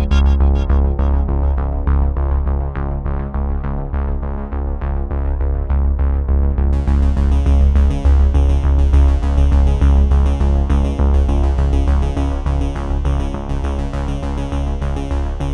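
Background music with a steady pulsing bass; it turns brighter about seven seconds in.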